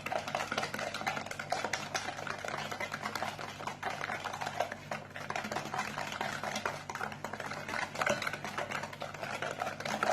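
A utensil rapidly mixing a runny egg, sugar and oil batter in a bowl, clicking and scraping against the bowl without a break.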